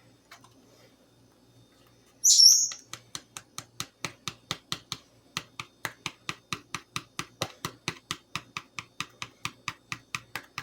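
Pet bird gives one loud, high chirp about two seconds in. It is followed by a rapid, steady run of light taps, about four to five a second, as baking soda is tapped out of its container into a measuring spoon.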